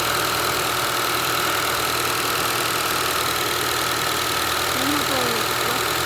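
Honda car engine idling steadily, a constant running noise with a steady whine over it.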